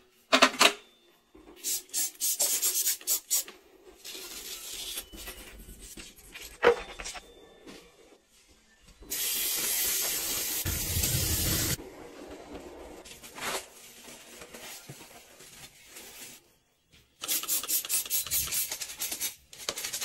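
Close-up rubbing and rustling of clothes and small household items being handled, in several short takes. A few seconds of steady rushing noise sit near the middle.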